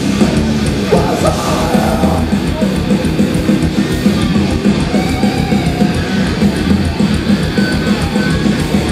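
Death metal band playing live and loud: heavy distorted electric guitars over a steady beat.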